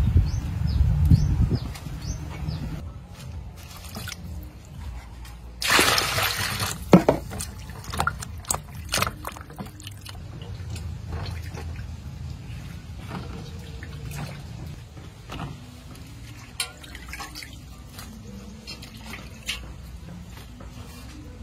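Water splashing and dripping as lettuce leaves are washed by hand in a metal basin of water, with a louder rush of water about six seconds in, then scattered drips and splashes.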